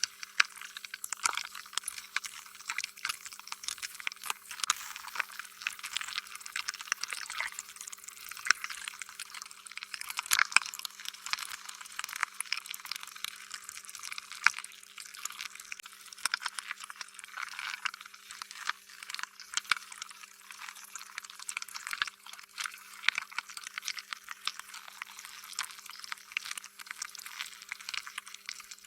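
Slime being squished and worked by hand: a continuous run of wet, sticky crackles, squelches and small pops.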